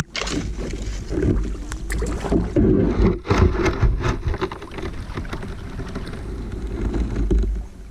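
Water splashing and sloshing around a kayak, with irregular clicks and splashes, under a heavy wind rumble on the microphone.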